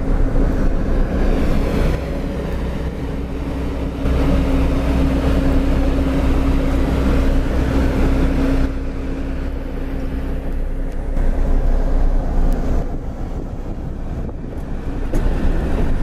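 Diesel engines of heavy construction machinery running: a single-drum vibratory road roller and a bulldozer, with a steady engine hum through the middle. Wind buffets the microphone.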